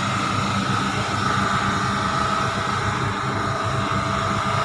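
250 cc two-stroke engine running steadily at high revs, with a steady high whine on top.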